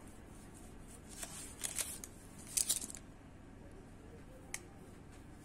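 Hands rustling baking paper while handling dough slices: two short bursts of crisp rustling, then a single light click near the end.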